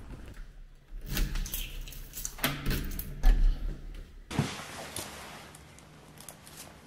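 A bunch of keys jangling and a front door being unlocked and opened: a run of metallic clicks and knocks, one loud clunk about three seconds in and another sharp one about a second later.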